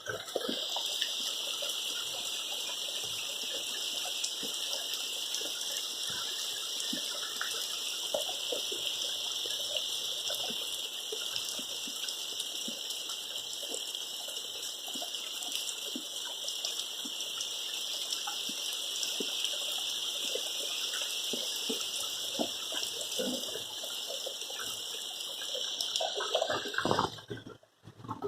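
Steady rain hiss with scattered drops ticking through it, cutting off suddenly about a second before the end.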